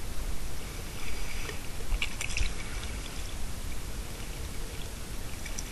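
Ambience on a small dive boat at sea: a steady wash of wind and water noise with a low rumble, and a few light clanks of scuba gear about two seconds in.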